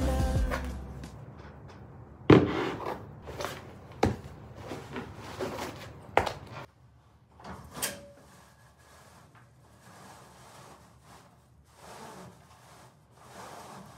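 Background music ends within the first second. Then come about four sharp knocks or thuds, a second or two apart, with softer rubbing and rustling between them, as of objects being handled and set down.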